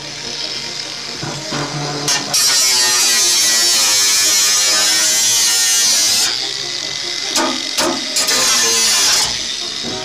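Makita 18-volt cordless angle grinder running, its disc cutting into galvanised corrugated steel roofing sheet with a loud, harsh hiss from about two seconds in to about six seconds. It then runs on with a lighter cut for about three more seconds, with a couple of sharp clicks.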